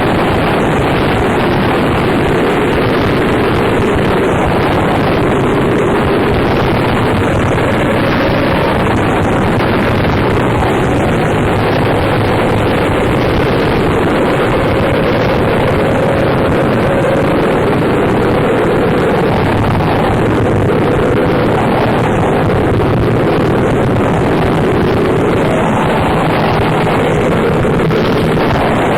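Harsh noise music: a dense, unbroken wall of distorted noise at a steady level, heaviest in the low and middle range, with a faint wavering drone around the middle.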